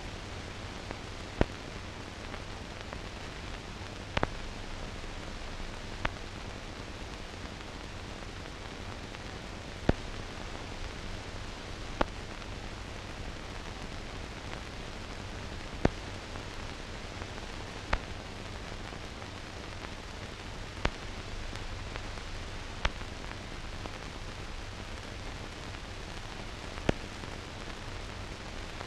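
Steady hiss with a low hum and a sharp click every two to four seconds: the blank-soundtrack noise of a silent newsreel film transfer.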